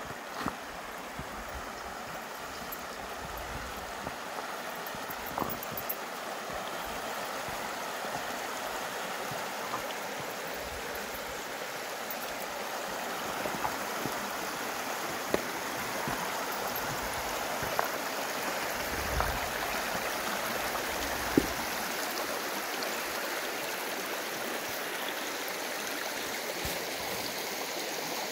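Shallow river riffle babbling and gurgling steadily over cobbles, with a few brief sharp ticks now and then.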